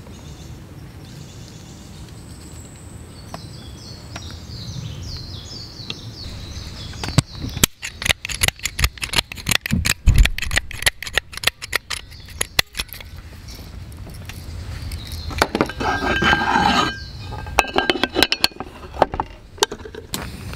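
Hand salt-and-pepper grinder being twisted, giving rapid dry clicking in bursts over several seconds, then again near the end. Between the bursts comes a ringing metallic clank from the cast-iron pan. Birds chirp faintly early on.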